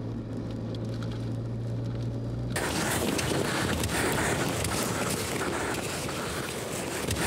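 Steady low drone of a car's engine heard inside the cabin. About two and a half seconds in it cuts to a loud, even rush of wind noise on the microphone out on the open ice beside a dog sled.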